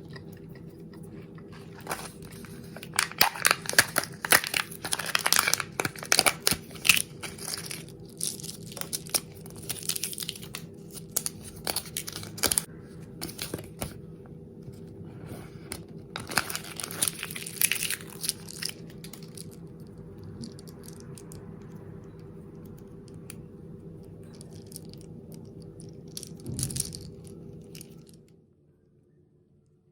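A candy wrapper being torn open and crinkled by hand, in bursts of crackling with sharp clicks, over a steady low hum that stops near the end.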